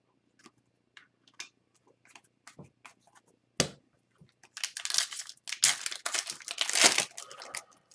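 Light clicks of cards being handled and a single sharp knock, then the foil wrapper of an Upper Deck hockey card pack being torn open and crinkled for about three seconds.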